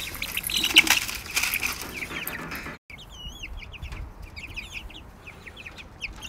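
Young chicks, about three to four weeks old, peeping and flapping their wings in a pen. The first half is busy with flapping and scuffling. After a brief break about halfway through, only scattered high, up-and-down peeps remain.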